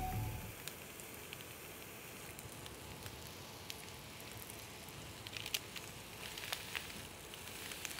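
Whole gilthead sea bream frying in oil on parchment paper in a hot pan: a soft, steady sizzle with scattered pops and crackles.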